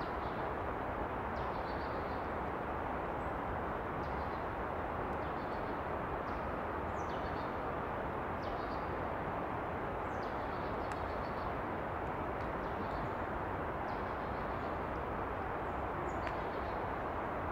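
Outdoor field-recording ambience: a steady rushing background noise with short, high, falling bird chirps every second or two.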